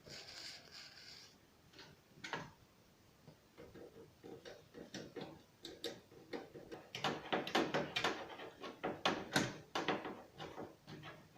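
Computer parts being handled and fitted: a short rustle, then a run of sharp clicks, taps and knocks that grows busier and louder in the second half.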